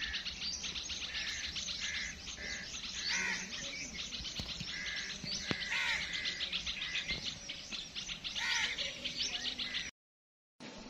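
Small birds chirping: a fast, steady run of high chirps with a few louder calls mixed in. The sound cuts out abruptly for about half a second near the end.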